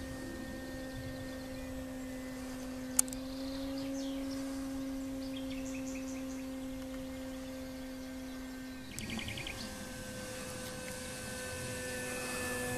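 E-flite Carbon Z electric RC airplane flying overhead: a steady hum from its motor and propeller that dips slightly about nine seconds in and grows louder near the end as the plane comes closer. A single sharp click sounds about three seconds in.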